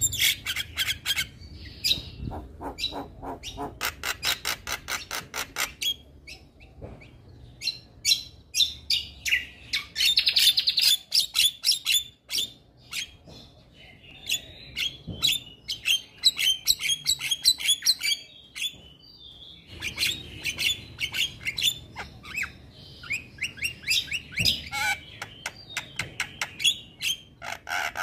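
Male Javan myna (jalak kebo) singing in bouts of rapid, sharp chattering notes, mixed with longer, harsher calls, with short pauses between bouts.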